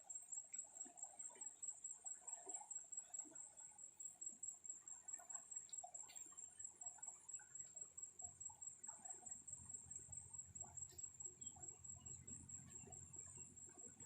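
Faint, steady, high-pitched insect trill, like crickets chirring, with scattered small faint sounds; a faint low rumble joins in over the last several seconds.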